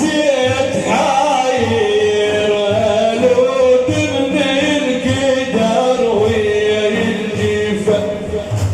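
Male voices chanting a melodic Iraqi Islamic praise song in honour of the Prophet (manqabah), the sung lines long and ornamented, over a steady low drumbeat.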